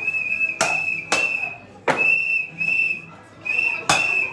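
A shrill, steady whistle tone sounding in short repeated blasts, with four sharp knocks on the customers' metal helmets as the bartender strikes them.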